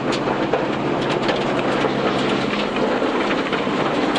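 Inside a Subaru Impreza 2.5RS rally car on a gravel road: its flat-four engine runs steadily under constant tyre and road noise, with many sharp ticks of stones and rattles against the car. The steady engine tone drops away about two and a half seconds in.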